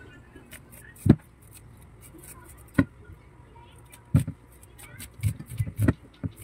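A knife cutting kernels off an ear of corn, each stroke ending in a dull knock of the blade against the plate and table. The strokes come a second or two apart, then several in quick succession about five seconds in.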